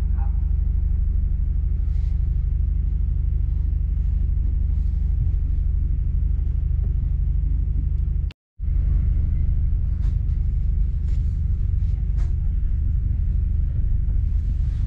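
Steady low rumble of a moving passenger train heard from inside the carriage. It cuts out completely for a moment about eight seconds in.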